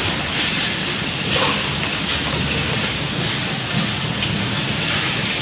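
Steady rain-like hiss of workshop machinery noise around a benchtop automatic taping machine as it wraps protective tape around a USB charger shell.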